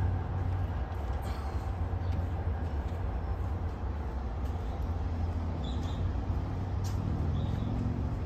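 Steady low rumble of a Red Line subway train approaching the station along the elevated track, with a few faint sharp ticks.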